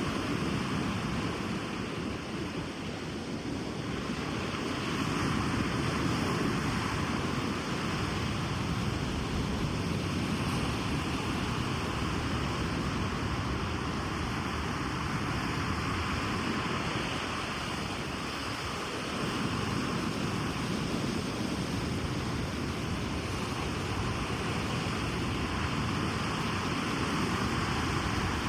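Ocean surf on a beach: a continuous wash of breaking waves that swells and eases slowly over several seconds.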